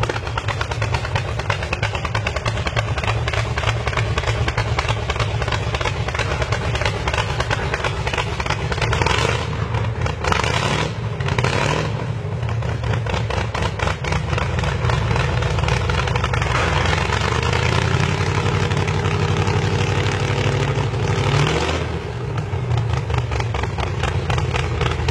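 Custom tractor's V8 engine running through short individual open exhaust pipes, with a fast, choppy idle. It is blipped several times about ten seconds in, then held at higher revs for a few seconds before dropping back near the end.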